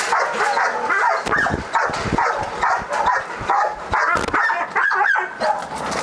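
A young pit bull and pointer cross in a steel kennel barking and yelping aggressively over and over without a break, with dull thumps about a second in and again around four seconds.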